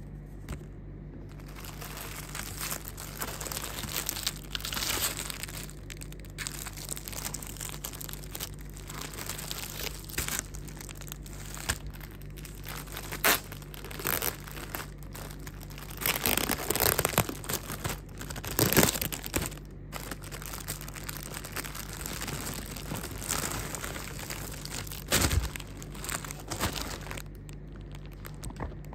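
Clear plastic bag crinkling and rustling as it is handled and opened by hand and a cotton T-shirt is drawn out of it. The rustling is irregular, with louder bursts about two-thirds of the way through and a few sharp clicks, over a steady low hum.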